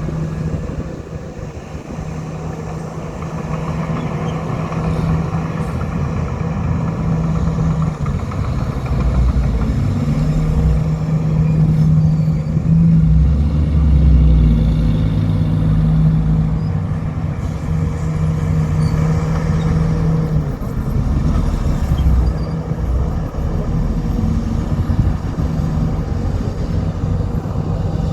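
Heavy diesel engine of an old Komatsu bulldozer running hard while pushing dirt, steady in pitch, growing louder about a third of the way in and staying loud.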